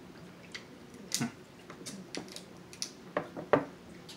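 Snow crab leg shells cracking and snapping as they are broken open by hand: a few sharp cracks with small clicks in between, the loudest about three and a half seconds in.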